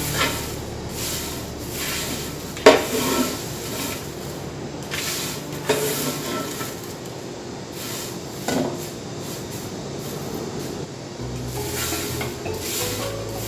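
Globe amaranth flowers being stirred and turned over in a hot roasting pan, a scraping rustle with three sharp clanks of the utensil against the pan about three seconds apart, the first the loudest.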